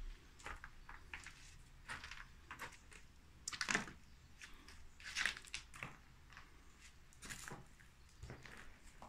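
Footsteps crunching on grit and debris on a floor: faint, irregular crunches, with louder ones about three and a half, five and seven and a half seconds in.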